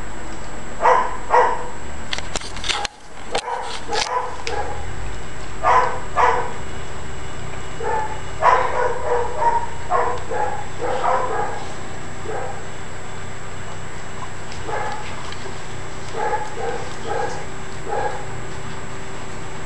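Dogs barking and yipping in short excited bursts while waiting to be fed bread, with several sharp clicks a few seconds in.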